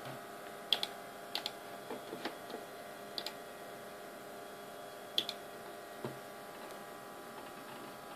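Computer mouse button clicks, several in quick press-and-release pairs, over the steady hum of the running Power Macintosh 7500.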